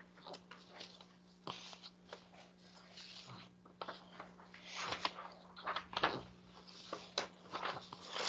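Faint irregular rustling and clicking, denser in the second half, over a steady low electrical hum, heard through a video call's audio.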